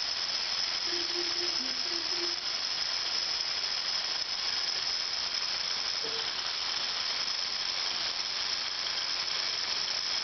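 Electric motors and gear train of a Lego model big square baler running steadily, a constant high-pitched whine over a hiss.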